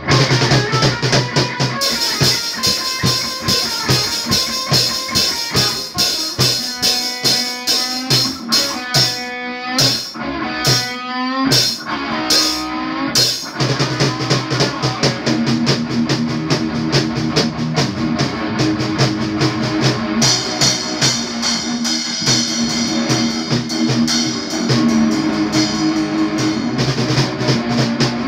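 Electric guitar played through an amplifier together with a drum kit, a live rock jam with steady drum hits under the guitar. About ten seconds in, the drumming thins out for a few seconds while the guitar plays gliding notes.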